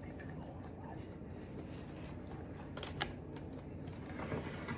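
Soft clicks and taps from eating, over a steady low hum, with a sharper click about three seconds in.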